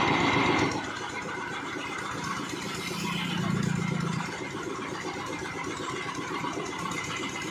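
A small engine running steadily at idle, with an even low pulse. It is louder and noisier for the first half-second or so, then settles.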